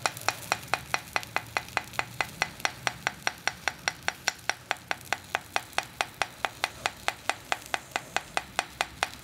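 Small hammer tapping steadily and quickly on a spelter socket, about five sharp, ringing metallic taps a second, stopping near the end. The tapping settles the freshly poured molten zinc in the socket and works out air bubbles.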